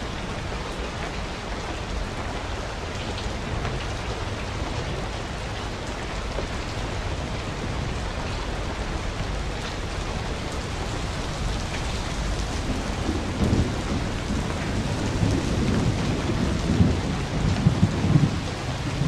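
Steady rushing of a small waterfall pouring into a rock pool. Over the last few seconds come louder, low splashes from water striking the pool.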